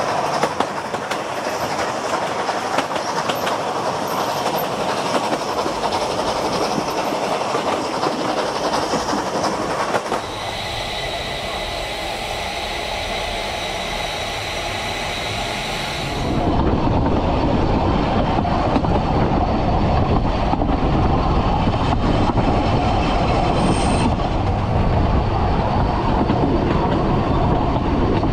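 Narrow-gauge steam train running, its carriage wheels clattering and squealing on the rails. About ten seconds in, this gives way to a steady hiss of steam from a locomotive standing at a platform. About sixteen seconds in, it cuts back to a moving train, now louder with a deep rumble.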